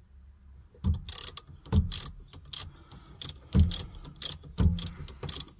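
Ratchet wrench clicking in repeated strokes as a bolt is tightened, starting about a second in, about one stroke a second.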